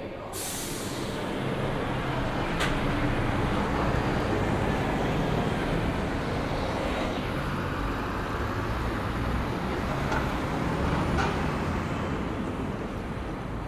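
Busy city road traffic, led by a heavy vehicle's engine running steadily close by with a low hum. A brief hiss comes right at the start.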